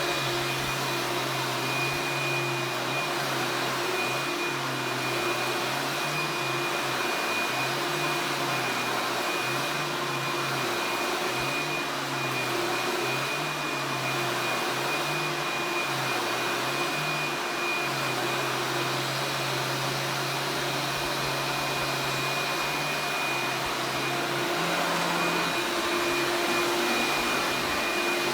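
A 1990s vacuum cleaner with a 12-amp motor running continuously: a steady motor whine with a low hum that shifts up and down in pitch every second or so.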